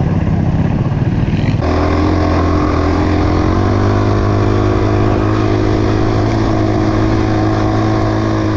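Motorcycle engine running. It changes abruptly about one and a half seconds in, then holds a steady note that climbs a little as it picks up revs.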